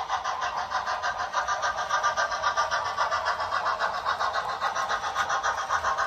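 Model freight train hauled by a steam locomotive running past on sectional track, making a steady, fast, even rhythmic clatter.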